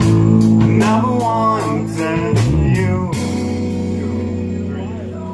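A rock band playing: a steady drum beat with guitar and bass and a bending melodic line. About three seconds in the drums stop and held chords ring on, fading slightly.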